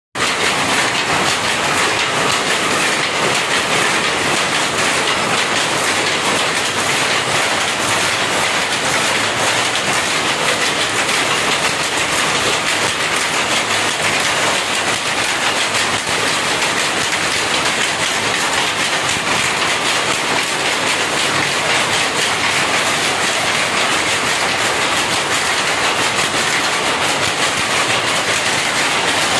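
Power loom with a jacquard head running at speed, making a loud, steady, rapid mechanical clatter as it weaves a saree.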